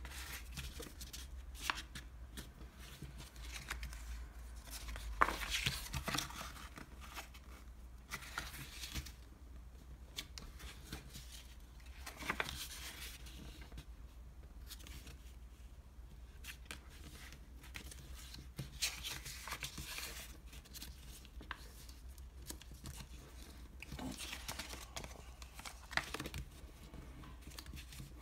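Hands folding and creasing a flattened piece of ice cream box into an origami boat: irregular rustling and crinkling of the paperboard with scattered sharp clicks, over a steady low hum.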